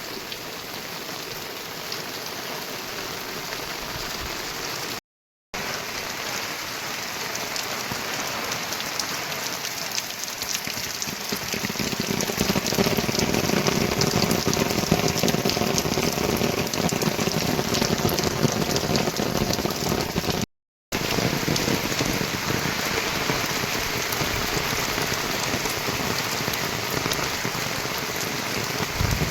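Heavy monsoon rain falling steadily, growing louder and fuller about twelve seconds in. It cuts out twice for a split second.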